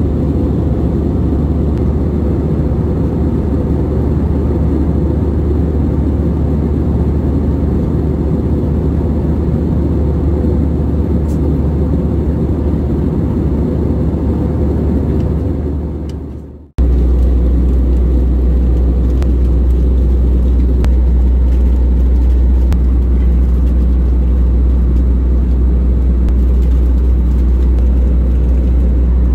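Airbus A320-200 passenger-cabin noise in flight: a steady, low rumble of engines and rushing air. A little past halfway it fades out abruptly and comes straight back with a deeper, stronger rumble.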